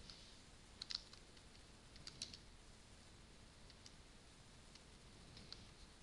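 Faint computer mouse clicks, a few close pairs at irregular intervals over near-silent room tone.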